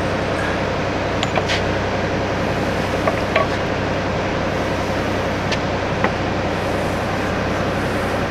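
A steady machine drone with a low hum, and a few faint, light clicks from hand work at the metal spindle housing.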